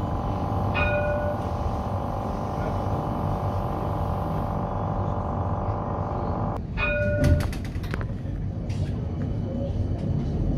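CAF Urbos 3 tram running over street track, heard from the driver's cab: a steady rumble with a humming ring that cuts off suddenly about two-thirds of the way through. Near the end comes a quick run of clacks as the wheels cross the track junction.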